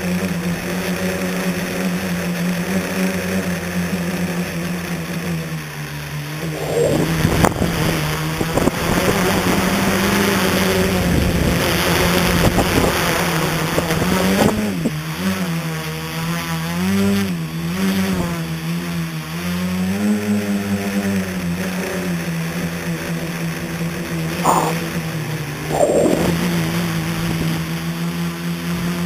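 A scratch-built tricopter's motors and propellers humming, heard from its onboard camera. The pitch wavers up and down with throttle changes, with a few quick surges. A stretch of rushing wind over the microphone comes in the middle.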